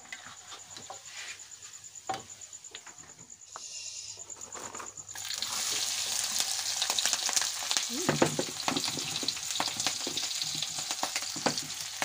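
Chopped shallots, garlic and chilli sizzling in hot oil in a wok, with small clicks and scrapes of stirring. The sizzle comes in suddenly about five seconds in, after a few seconds of only faint clicks, and then keeps up steadily.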